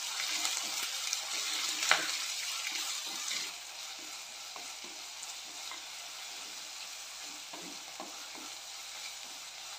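Chopped onion and curry leaves sizzling in hot oil in a clay pot, stirred with a wooden spatula that scrapes around the pot. There is a sharp knock about two seconds in, and the sizzle eases after about three and a half seconds.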